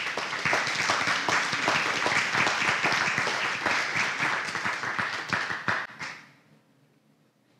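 Congregation applauding, a dense patter of many hands clapping that fades out after about six seconds.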